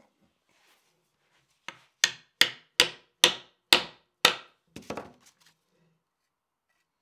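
Wooden mallet striking the blue-taped metal ferrule end of a wooden axe handle, driving the ferrule on as a tight drive-in fit: one light tap, then six hard blows about two a second, then a few lighter taps.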